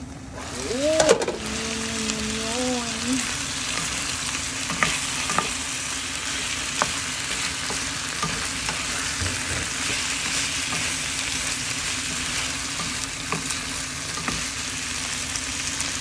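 Chicken, napa cabbage and potato slices sizzling in a hot frying pan while a wooden spatula stirs them, with scattered light ticks of the spatula against the pan. A short squeal about a second in is the loudest moment.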